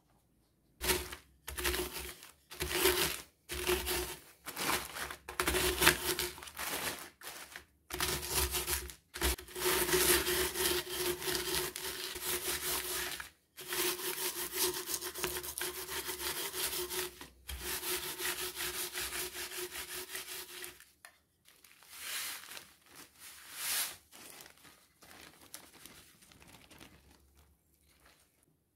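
Wooden rolling pin rolled back and forth over cookies in a zip-lock plastic bag, crushing them into crumbs: the crunch of crumbs and rustle of plastic, with a hum from the rolling pin. It starts as short strokes, settles into longer rolls, and fades to a few softer sounds near the end.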